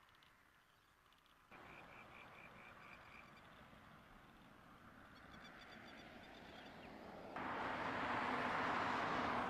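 Outdoor ambience: short runs of rapid, evenly spaced pulsed calls from a small animal, and about three-quarters of the way in, a much louder steady rushing noise.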